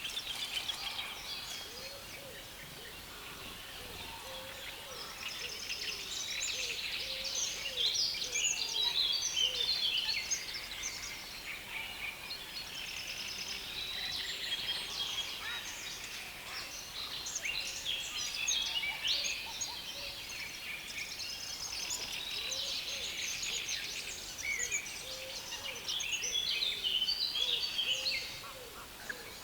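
Songbirds in a reed bed singing in a dense, loud chorus: overlapping fast chattering songs of high, scratchy notes, with no break.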